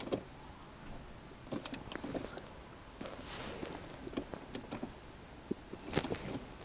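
Scattered light clicks and taps of hands handling a car's shift knob and its hose-clamp fitting, with a brief soft rustle a few seconds in.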